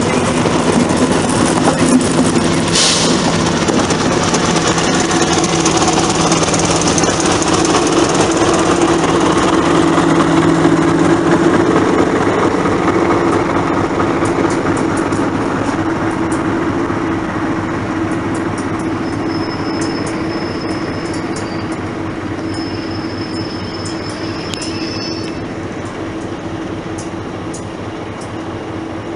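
SU42 diesel locomotive's engine running as it passes and draws away, then double-deck passenger coaches rolling past as the train slows into the terminus, with clicking wheels and a thin high brake squeal, on and off, about two-thirds of the way through.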